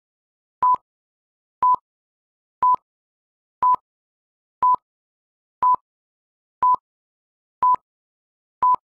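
Countdown timer beeps: a short, single-pitched electronic beep once a second, nine times, with silence between, counting down the seconds to the start of the next exercise.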